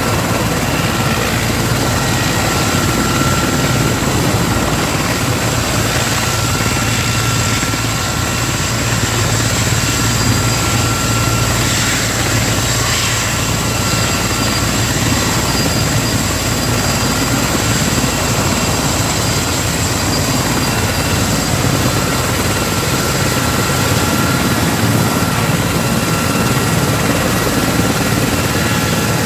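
Erickson S-64 Air-Crane heavy-lift helicopter running steadily: a high, even turbine whine over the low beat of the rotor.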